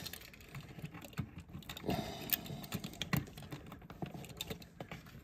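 Screwdriver driving the mounting screws of new light switches into a metal gang box: light, irregular clicks and taps of the bit on the screws and the switches' metal straps.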